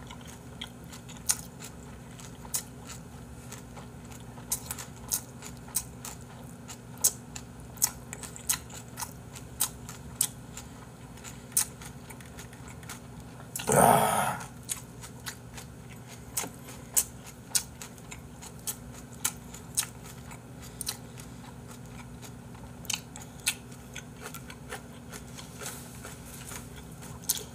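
Close-miked chewing of a mouthful of boiled pork and cabbage, with many short wet mouth clicks and smacks. About halfway through comes one louder voiced sigh as he breathes out with his mouth open.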